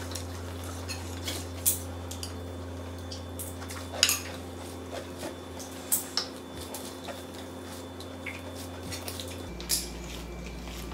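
Scattered light clicks and taps of a ceramic bowl and tableware being handled during a meal eaten by hand, the sharpest about four seconds in, over a steady low hum.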